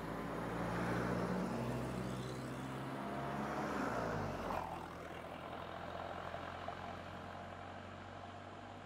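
Road vehicle engines: a van passing close by, its engine note dropping as it goes past about four seconds in, followed by a steadier, quieter low engine hum.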